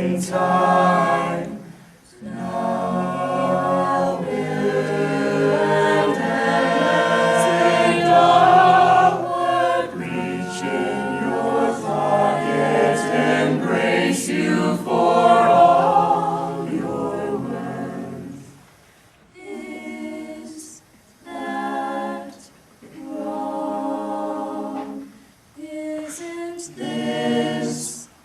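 A cappella choir singing a hymn-like piece, many voices holding full chords for most of the time, then breaking into short separate phrases with brief pauses between them near the end.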